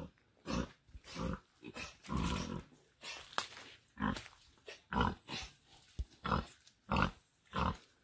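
Sow grunting in short, low, regular grunts, about one to two a second, while her piglets suckle: the rhythmic nursing grunts of a sow at feeding time.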